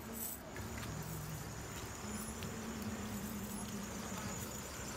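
Outdoor background: a steady low motor hum, with faint insect chirping above it.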